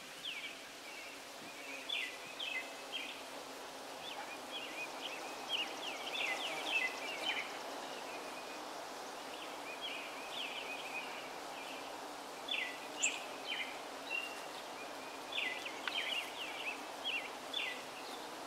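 Many bees buzzing in a flowering holly tree, a steady hum throughout. Over it a small bird chirps repeatedly in quick clusters of sharp notes, the loudest sound.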